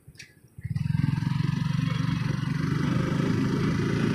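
Motorcycle engine running steadily under way, with wind and road noise. It comes in abruptly about half a second in, after a brief near-silence.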